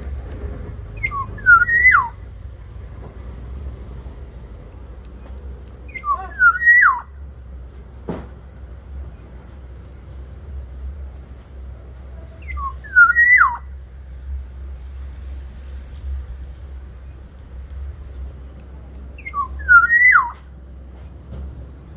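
Black-naped oriole singing its fluty whistled song: four short phrases several seconds apart, each a few quick whistles ending in a note that swoops up and drops. A steady low rumble runs underneath.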